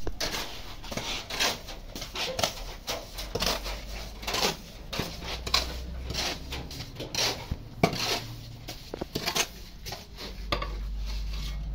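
Irregular scraping and clinking of metal hand tools against wet cement mortar and a metal pipe mould, about one or two scrapes or knocks a second.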